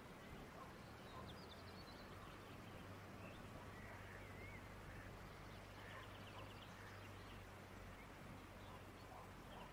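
Near silence: faint outdoor background with a few quick, distant bird chirps, about a second in and again around six to seven seconds, over a low steady hum.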